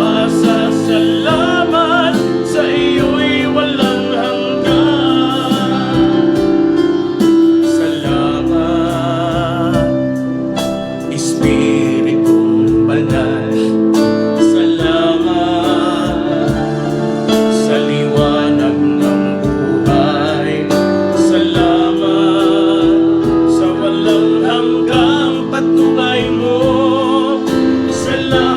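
Gospel worship song: a singer's voice carrying the melody over steady instrumental accompaniment.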